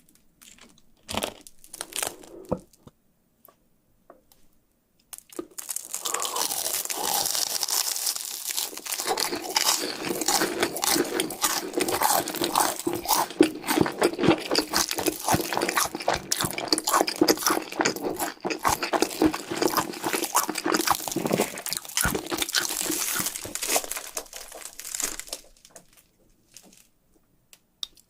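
Close-miked biting and chewing of crunchy cheese sticks. A few sharp bites come in the first seconds, then about twenty seconds of dense, steady crunching that stops a few seconds before the end.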